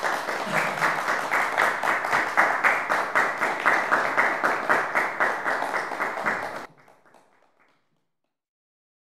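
Small audience applauding, a dense patter of many hands clapping, which cuts off suddenly about two-thirds of the way in, leaving near silence.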